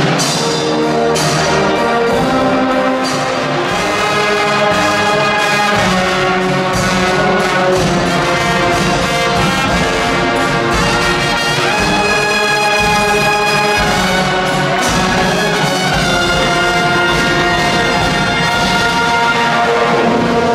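Carnival brass band playing a tune in a church, with trumpets, trombones and tubas carrying long held notes over drums.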